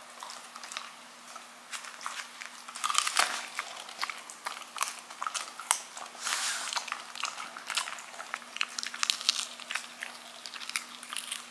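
A small dog gnawing a large, hard chew treat: a run of irregular crunches and cracks as its teeth work the stick.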